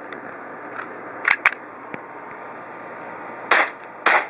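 Gas blowback airsoft Glock pistol: two light clicks about a second in, then two shots near the end, about half a second apart.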